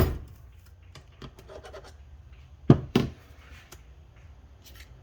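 Two sharp metal knocks about a third of a second apart, just past halfway, amid faint clicks of parts and tools being handled during manual transmission reassembly.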